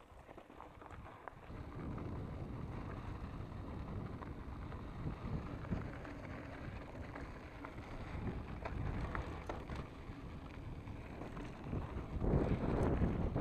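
Wind buffeting the camera microphone over the rumble of a Specialized Enduro Comp 650b mountain bike's tyres rolling fast on a gravel trail, with small rattles and clicks from the bike. It swells about a second and a half in and is louder again near the end.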